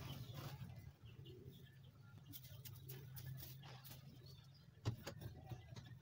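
Quiet yard with faint bird calls and scattered knocks and scrapes from a wooden cage being cleaned out by hand. One sharper knock comes about five seconds in.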